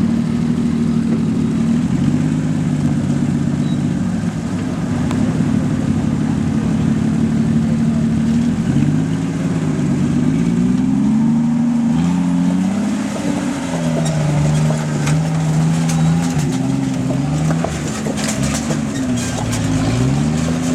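Lifted 1993 Jeep Wrangler YJ's 4.0-litre inline-six crawling over rocks in low range: the engine holds a steady speed at first, then is revved up and down repeatedly from about nine seconds in as it climbs. Scattered clicks and knocks join in near the end.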